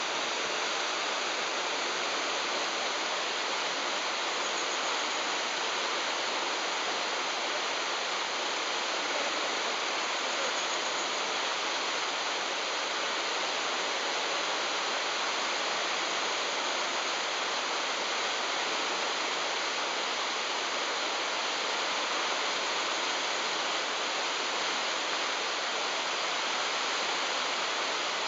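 Whitewater rapids of a rocky river rushing steadily.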